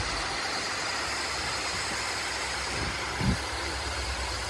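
Steady rumbling noise of a moving vehicle ride, with a single thump about three seconds in.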